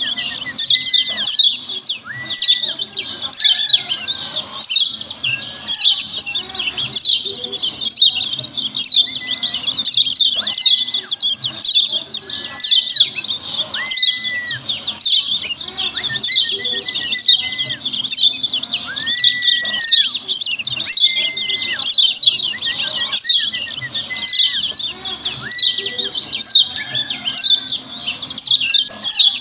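Kecial kuning (yellow white-eye) giving its 'ciak' calls: a continuous rapid stream of high, quick downward-slurred chirps. A lower, clear whistled note sounds every second or two.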